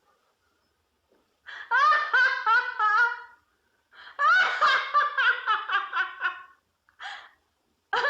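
A woman laughing in rapid, high-pitched pulses: after about a second and a half of quiet, one burst of laughter, a short pause, a longer burst, then two short bursts near the end.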